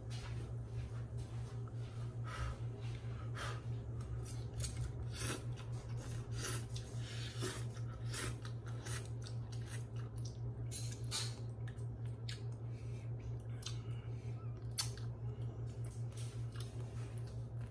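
A man eating instant ramen noodle soup with a fork: slurping and chewing, many short wet clicks one after another, over a steady low hum.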